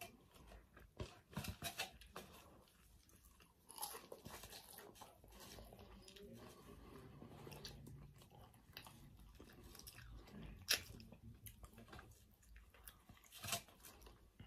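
Faint close-up chewing and biting of a fast-food meat sandwich: soft mouth noises with a few sharper crunches and clicks scattered through.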